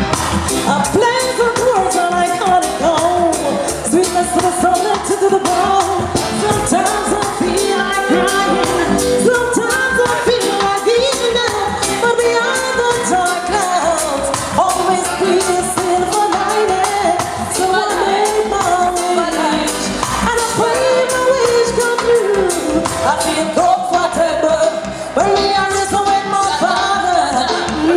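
A woman singing live over a reggae backing track played by a selecta, with a steady beat.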